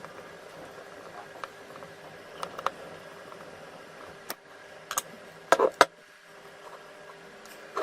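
Scattered light clicks and taps of small parts or tools being handled, with a short cluster of louder knocks a little before six seconds in, over a faint steady hum.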